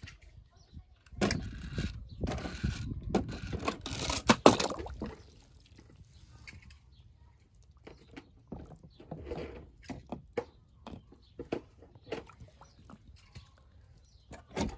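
Water splashing and sloshing with small hard clicks and clatters, as die-cast toy cars are handled in water. The splashing is busiest from about a second in to about five seconds in, then only scattered clicks.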